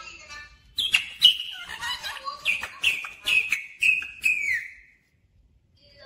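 Rose-ringed parakeet (Indian ringneck) giving a quick run of short, high calls, about two a second, starting about a second in and stopping near five seconds.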